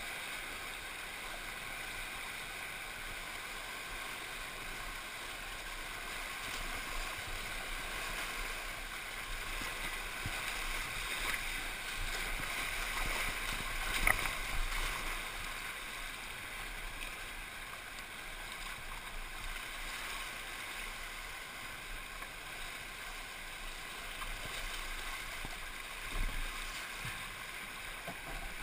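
Rushing whitewater of a flood-swollen river heard from a kayak running the rapids, with water splashing against the boat and paddle. It swells as the kayak crashes through waves about halfway through.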